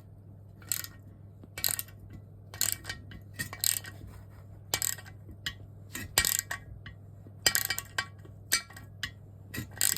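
A wrench turning a threaded M8 screw against washers and a metal spacer to draw out a steel oil galley core plug: sharp metallic clicks and clinks about once a second, over a low steady hum.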